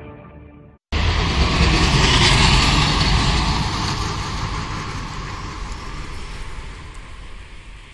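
The closing music fades and cuts off, then about a second in a loud rushing hiss with a low rumble of traffic on a wet, slushy road starts abruptly and fades away slowly.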